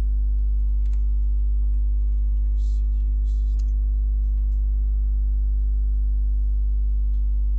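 Steady low electrical mains hum with its overtones, loud throughout. A few faint keyboard clicks sound over it in the first few seconds.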